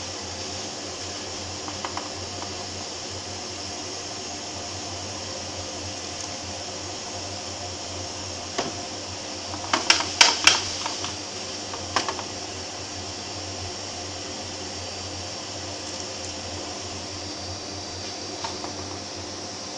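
Steady whir of a vacuum drawing air up through a homemade PVC-pipe cacao winnower. About halfway through comes a short cluster of clicks and rattles as cracked cacao beans and husk are moved in the metal tray beneath it.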